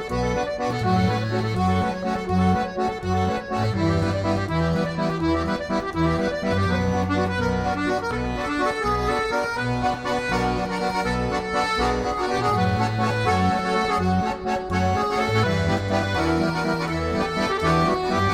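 Instrumental music, with a bass line stepping from note to note under the melody.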